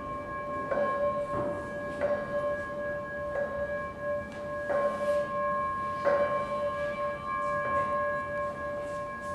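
Metal singing bowls ringing together in a sustained chord of steady tones, each struck again every second or so, so that the ringing is renewed with soft strikes.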